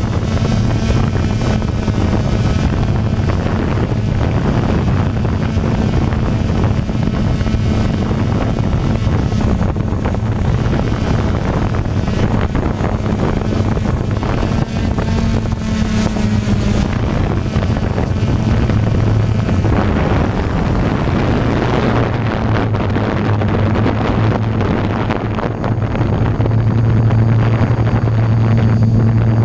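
Electric motors and propellers of a radio-controlled multirotor, heard from its onboard camera as a steady low hum under wind rush on the microphone. The hum swells near the end as it climbs.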